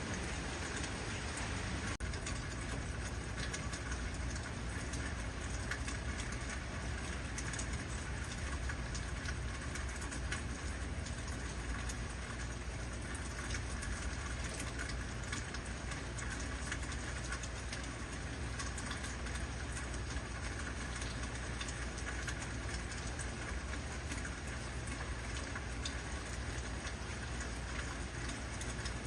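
Heavy rain falling steadily: a dense, even hiss of many drops, with a steady low rumble underneath.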